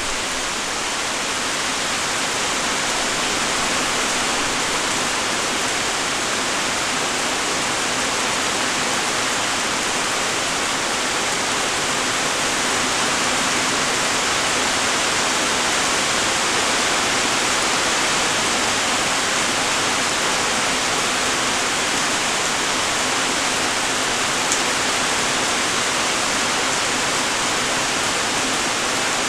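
Steady light rain falling, an even hiss of many raindrops, with one sharp tick near the end.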